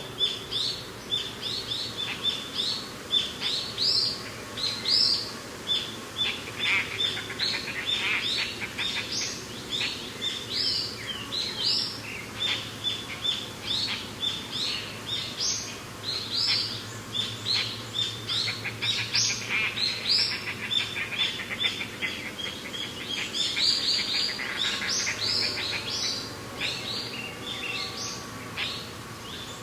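Many birds chirping and singing together, a dense run of short high calls throughout, with stretches of fast trills twice, over a steady low background of mountain wind.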